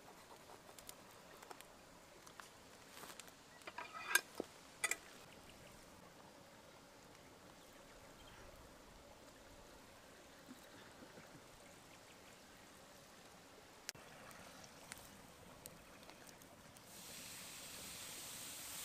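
Faint handling sounds of a raw, twine-tied lamb roll being worked by hand on a wooden block: a few sharp clicks and taps about four seconds in, then scattered light ticks. Near the end a steady hiss comes in from the wood fire under the flat cooking stone.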